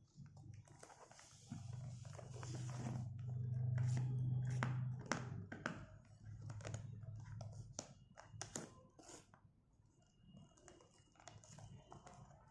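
Packaging being torn and pulled open by hand: a string of sharp crackles, rips and clicks, with a steady low hum underneath that is loudest a couple of seconds in.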